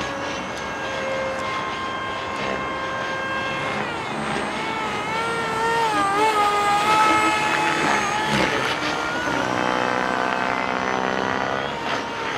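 Electric ducted fan of a STARMAX F-35 Lightning II radio-controlled model jet, whining in flight. It holds a steady pitch at first, then from about a third of the way in it wavers and swoops up and down as the jet climbs and banks, and it is loudest around the middle.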